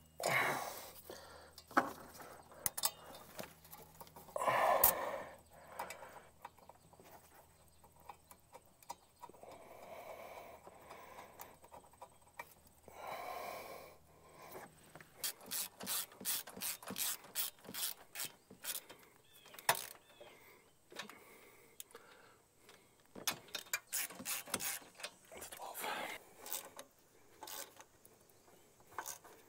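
Hand-tool work on a diesel engine's EGR tube: a ratchet wrench clicking in quick runs, with scattered knocks of metal parts.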